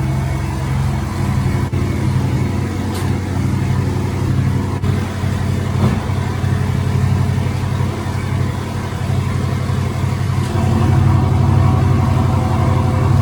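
Porsche Boxster engine running steadily at low revs, a little louder in the last few seconds.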